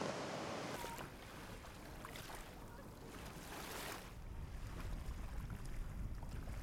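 Small waves lapping and washing around bare feet in shallow water at the shoreline. A low wind rumble comes in over the second half.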